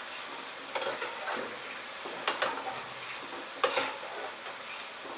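Boondi (drops of gram-flour batter) sizzling steadily as they deep-fry in hot oil in a kadai. A metal slotted ladle is stirred through them and gives three light clinks against the pan.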